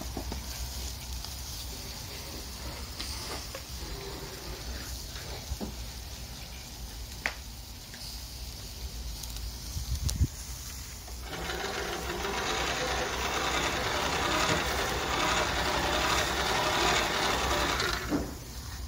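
Charcoal grill with skewered chicken sizzling, with a few faint crackles. In the second half a hand-cranked grill blower whirs steadily for about seven seconds, forcing air into the coals, then stops.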